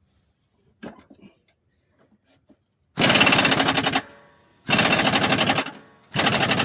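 Pneumatic air ratchet tightening a mower blade nut, run in three bursts of rapid rattling about a second each, after a few faint clicks.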